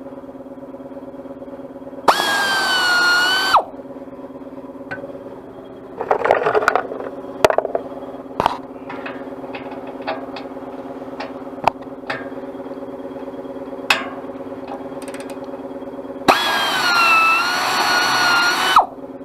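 Power drill run twice with a steady whine, once for about a second and a half and later for about two and a half seconds, working the bolts on a baler pickup. Between the runs come scattered sharp metallic clicks and a short clatter, over a steady low hum.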